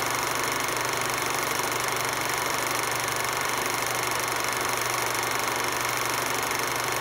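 Film projector sound effect: a projector running with a steady mechanical whir that does not change.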